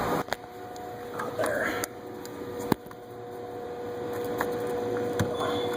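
Scattered clicks and knocks of tools and parts being handled during work under a minivan, over a steady faint hum. A louder noisy sound cuts off just as it begins.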